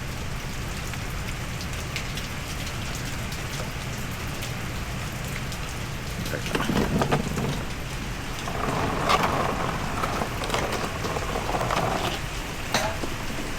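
Antifreeze draining from the radiator drain into a catch pan: a steady splashing trickle, with a few light clicks and knocks, and heavier splashing a little past the middle.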